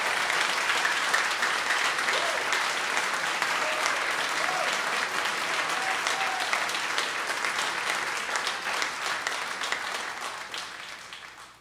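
Concert audience applauding, a dense steady clapping that fades out over the last few seconds.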